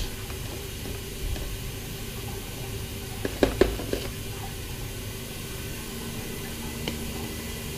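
Nitrile gloves being pulled on, with a few brief snaps and rustles about three and a half seconds in and another near the end. Under them runs a steady low machine hum.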